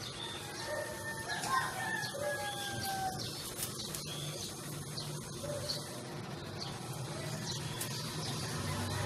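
An animal's drawn-out calls, several in a run during the first three seconds, each sliding down in pitch.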